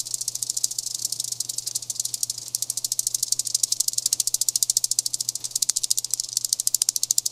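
Hot oil sizzling in a conveyor deep fryer: a fast, even, high-pitched crackle over a faint steady low hum.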